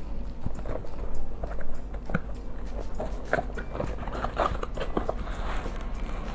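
Hands opening a cardboard shipping box and pulling at the bubble wrap inside: irregular rustling, scraping and crinkling, busiest in the second half.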